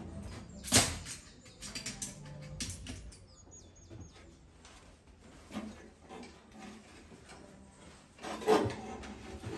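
A heavy canvas blanket being handled and draped over a car body: rustling and flapping cloth with scattered clicks and knocks. The two loudest, sharpest sounds come about a second in and near the end, and a faint high squeak comes about three seconds in.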